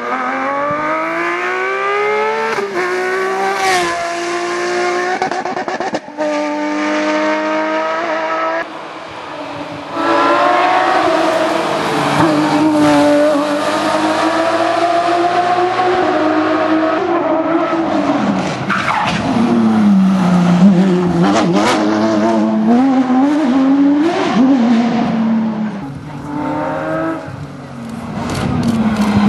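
Porsche 911 GT3 rally car's flat-six engine revving hard under acceleration, rising in pitch and dropping back at each upshift, with tyre and skid noise; the sound changes abruptly a few times, like cuts between passes.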